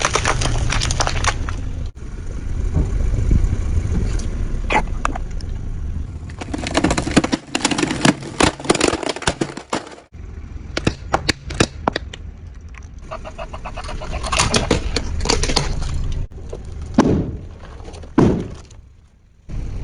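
Objects crunching, cracking and snapping as a vehicle runs over and crushes them, over a steady low engine rumble. It comes as several short crushing clips, each cut off abruptly.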